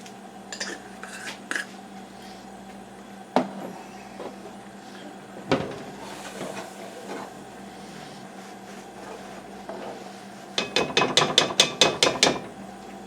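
Kitchen utensils and containers being handled at a pot: a few scattered knocks and clicks, then a quick run of about ten sharp taps near the end, over a steady hum.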